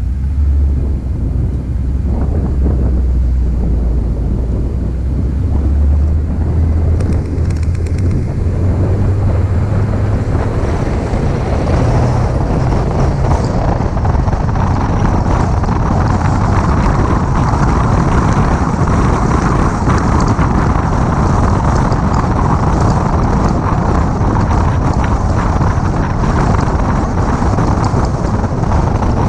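A 2006 Mini Cooper S driving along a winding road, heard through a hood-mounted camera. A low engine hum is clearest in the first dozen seconds. From about a third of the way in, a wind rush over the microphone grows and then dominates steadily.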